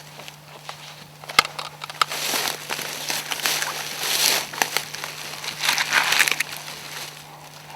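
Footsteps crunching through dry leaves and brush in uneven surges, with a sharp click about a second and a half in.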